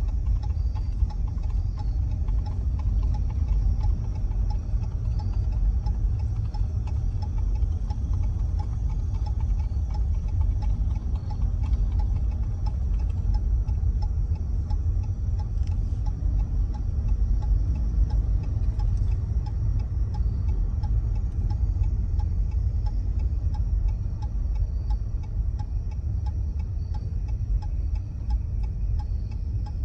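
Steady low rumble of a car rolling slowly, heard from inside the cabin, with a light, even ticking running over it.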